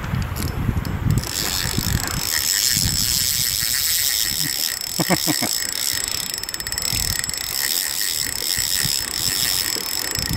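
Fishing reel ratcheting as a hooked smallmouth bass is fought on a bent rod: rapid fine clicking with a steady whine, starting about a second in, over low wind and water noise.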